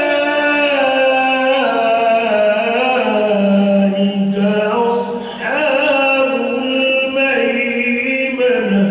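A man's voice chanting unaccompanied into a microphone in long, drawn-out notes that slide slowly in pitch, in the style of a devotional recitation, with a brief break about five seconds in.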